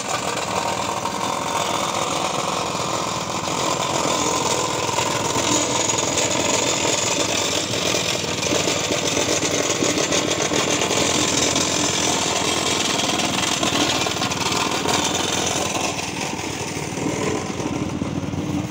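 Petrol-engined vibratory plate compactor running steadily at full throttle, its small single-cylinder engine and vibrating plate giving a loud, fast-pulsing buzz as it compacts loose sand.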